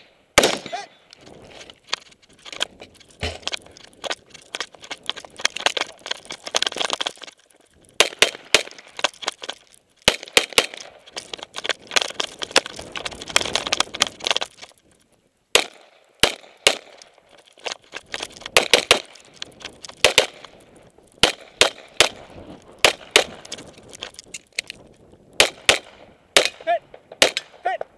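Many gunshots fired in quick strings with short breaks between them: a scoped rifle early on, and a pistol near the end, during a timed 3-gun course of fire.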